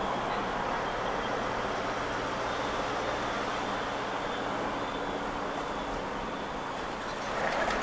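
Steady engine and road noise from inside a moving 4x4 pickup truck on a winding road, with a low engine hum underneath and a brief louder patch near the end.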